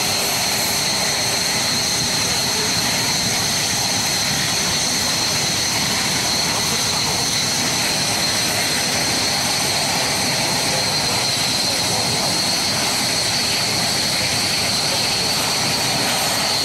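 Red Arrows BAE Hawk T1 jet trainers taxiing, their single Adour turbofan engines running at low power with a steady high-pitched whine over a continuous rush.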